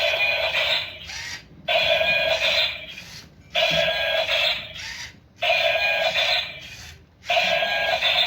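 Toy fighting robot's electronic sound effect: a buzzy, ringing burst of about a second, repeating about every two seconds, five times.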